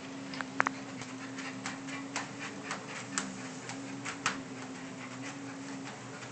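Treadmill motor and belt running with a steady hum, under irregular light clicks from a Bernese Mountain Dog puppy's paws and claws as he walks on the moving belt. A few sharper clicks stand out, the loudest about half a second in.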